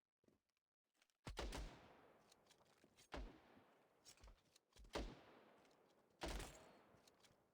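Four loud bangs over about five seconds, each sudden and trailing off in a long echoing decay.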